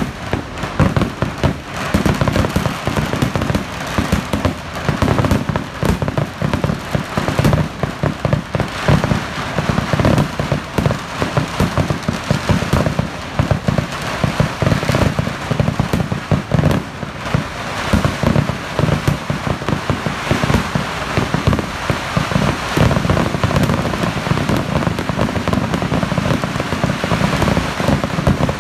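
A fireworks barrage: a dense, continuous string of bangs and crackling explosions with no pause, so thick that it runs together like heavy rain.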